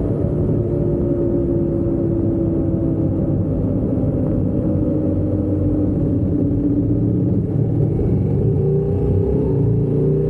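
Motorcycle engine running at road speed, with wind and road rumble on the bike-mounted microphone. The engine note sags slowly, then climbs again near the end.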